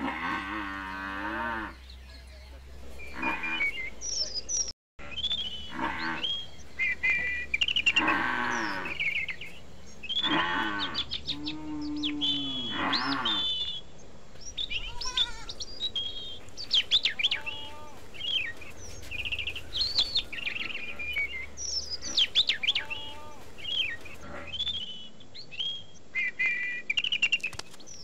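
Farm animals calling in a series of drawn-out, wavering cries through the first half, followed by many short bird chirps.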